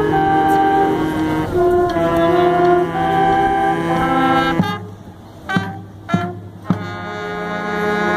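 Marching band playing: saxophones and brass hold sustained chords, which cut off about four and a half seconds in. Three sharp percussion hits about half a second apart follow, then the horns come back in on a low held chord that grows louder.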